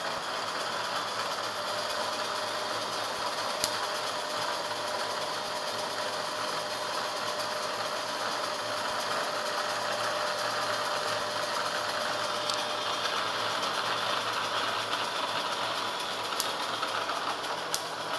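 Steady mechanical whirring with a faint hum running through it, broken by a few sharp clicks, one a few seconds in and a couple near the end.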